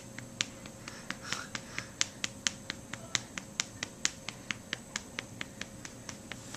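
Rapid, even patting of a hand on a newborn baby's back to burp him after a feed, about four to five light pats a second.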